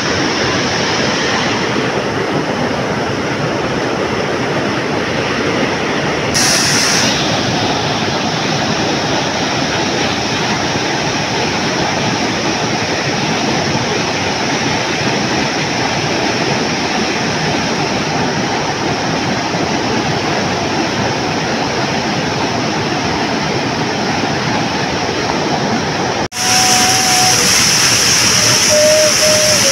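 Steady rushing of river water. About 26 seconds in it drops out for an instant and comes back a little louder and brighter.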